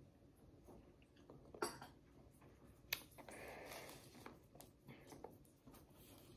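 Faint handling sounds of a plate and toast on a granite countertop: two sharp clicks, about a second and a half in and about three seconds in, followed by a brief soft rustle.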